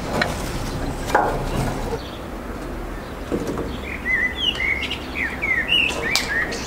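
Small birds chirping, a quick run of short gliding chirps in the second half, with a couple of sharp knocks near the start.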